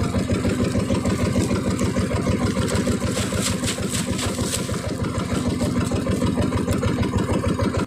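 A small boat engine running at idle with a rapid, steady chugging beat. About halfway through, water splashes as the trawl net full of shrimp is dunked and shaken over the side.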